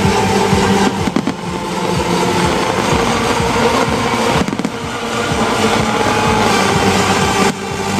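Fireworks display: irregular bangs and crackling over steady, loud music.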